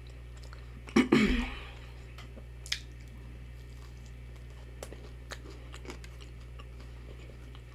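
Close-miked mouth sounds of someone eating fried fish and chips: a loud bite about a second in, then quiet chewing with a few small mouth clicks, over a steady low hum.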